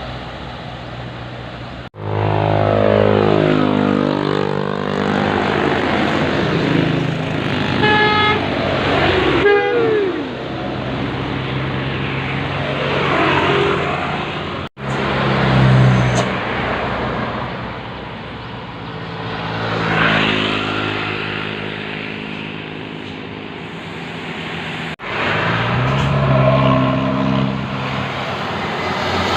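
Buses' telolet 'basuri' multi-tone musical horns playing warbling, sliding melodies over running bus engines, in several clips joined by abrupt cuts.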